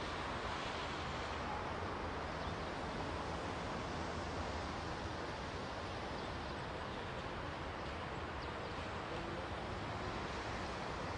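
Steady outdoor background noise, an even hiss and low rumble with no distinct events and no clear exhaust beats from the distant train.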